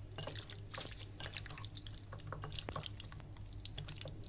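Raw chicken pieces being mixed through a thick yogurt marinade in a bowl: a stream of irregular wet squelches and sticky little clicks over a low steady hum.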